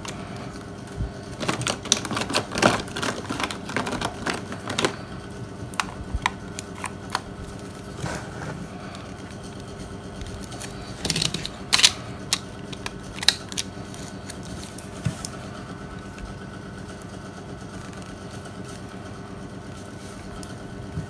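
Clicks and taps of a Nokia N73 mobile phone's plastic casing being handled and reassembled, with its back cover snapped into place, in a quick run in the first few seconds and a few more about halfway through, over a faint steady hum.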